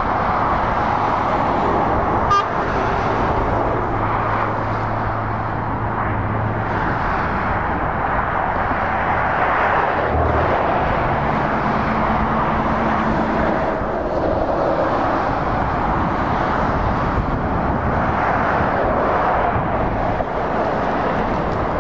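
Road traffic on a dual carriageway: heavy lorries and cars passing, with an even rush of tyres on the road and a low diesel engine drone that comes and goes as the trucks approach. There is a short click about two seconds in.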